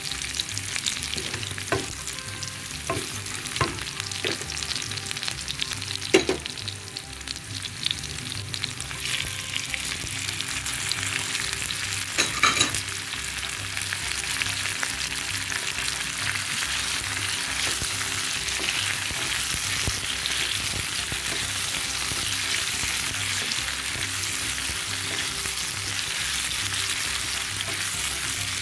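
Sliced onions, garlic and curry leaves sizzling in hot oil in a frying pan, stirred with a wooden spatula, with a few sharp knocks in the first half. After chopped tomatoes join the onions, the sizzle settles into a steady hiss.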